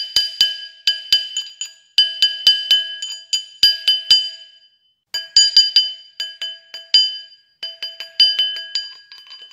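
Small hammer striking a metal ring on a steel ring mandrel, each blow followed by the mandrel's clear metallic ring. The blows come in quick runs of about four or five a second with short pauses between, stretching the ring larger to fit.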